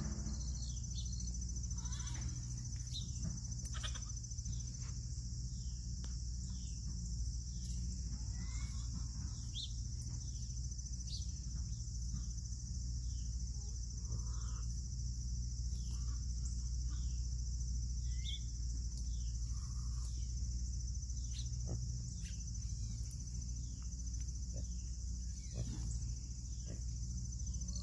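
Steady high-pitched chorus of crickets and other insects, with many short falling chirps over it and a low steady hum underneath.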